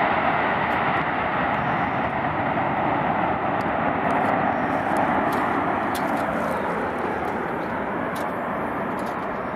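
Boeing 737-800's CFM56-7B jet engines running: a steady, rushing jet noise that slowly grows fainter.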